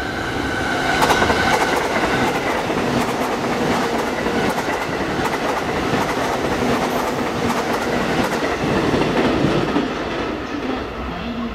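A JR East E531 series electric multiple-unit train passing at speed: a dense rumble of wheels on rail with a rapid run of clicks over the rail joints. It swells about a second in, holds through the middle and fades near the end as the train draws away.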